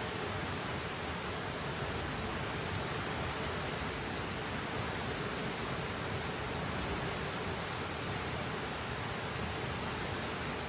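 A river rushing, a steady, even water noise.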